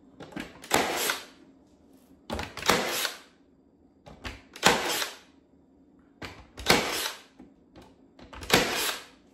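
Cordless brad nailer firing five times, about two seconds apart, each shot a sharp crack with a short tail and a small click just before it, as nails are driven into wooden trim strips.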